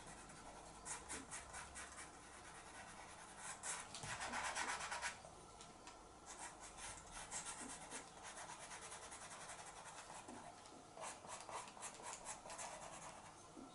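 Pastel pencil scratching across light grey PastelMat pastel paper in many quick, short strokes, heavier for a second or so about four seconds in.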